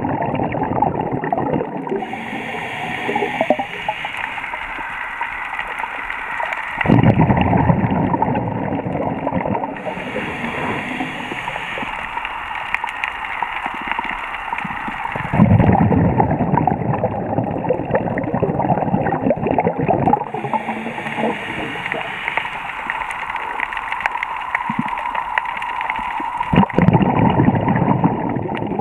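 Scuba diver breathing through a regulator underwater: three slow breaths, each a hissing inhale of about five seconds followed by a louder gush of exhaled bubbles.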